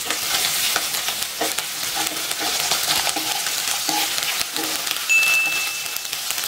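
Wooden spatula stirring potato chunks, green chillies and ginger paste through sizzling mustard oil in a nonstick kadai, with irregular scrapes and taps against the pan over a steady frying hiss. A thin high tone sounds for about a second near the end.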